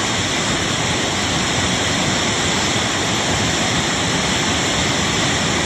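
Fast-flowing floodwater of the Barak River rushing in a steady, unbroken roar.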